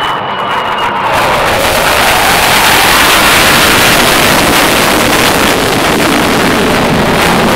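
Loud jet noise from a US Navy F/A-18 fighter's twin engines as it flies past and pulls up into a steep climb. It builds over the first second and then holds steady.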